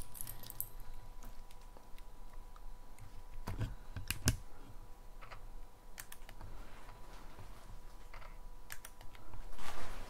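Scattered small clicks and knocks, with two louder knocks about three and a half and four seconds in.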